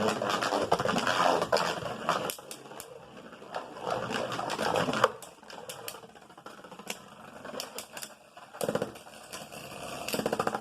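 Winning Valkyrie and Orb Aegis Beyblade Burst tops spinning and clashing in a plastic stadium: a fast clattering rattle full of sharp clicks from the hits. It comes in three loud stretches with quieter spinning between them.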